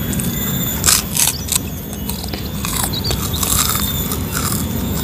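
People chewing and biting into food close to the microphone, with short crisp crunches and clicks, a cluster of them about a second in.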